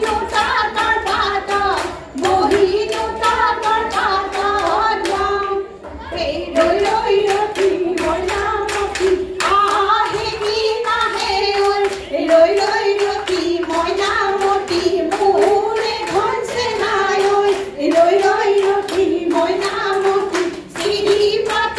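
Women's group singing an Assamese Jeng Bihu song in unison, with hand claps keeping a steady beat.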